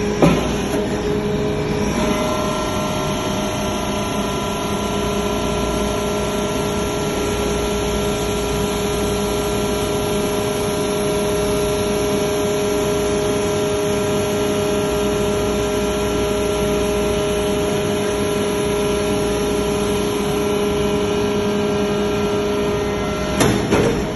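Hydraulic metal shavings baler running, a steady machine drone with a held whine that sets in about two seconds in. A few sharp knocks near the end.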